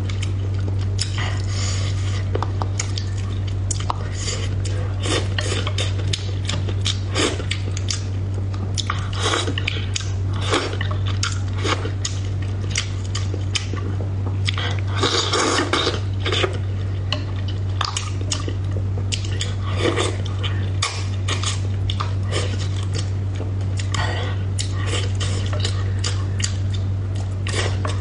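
Wooden chopsticks clicking and scraping against a bowl while someone chews braised fish, in many short irregular clicks with a busier spell about halfway through. A steady low hum runs underneath.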